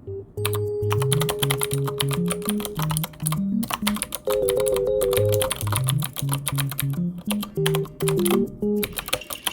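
Rapid typing on a computer keyboard, a dense run of key clicks with a few short pauses, over light background music with a plucked bass line and melody.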